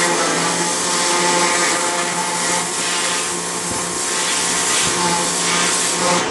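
A motor-driven machine running steadily, a loud hiss over a constant hum.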